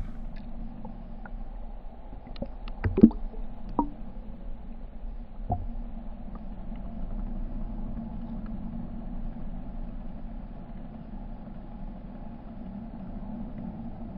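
Boat's outboard motors running steadily with a low hum, and a few knocks on the hull or deck, the loudest about three seconds in.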